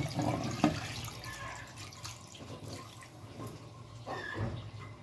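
Water poured from a plastic bowl into a pressure cooker of meat, onions and spices, splashing onto the food, loudest at the start and then tapering off.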